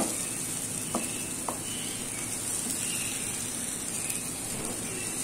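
Egg and gram-flour mixture with cabbage and onion sizzling softly in an oiled frying pan, cooked down until dry. There are two light spatula taps about a second in.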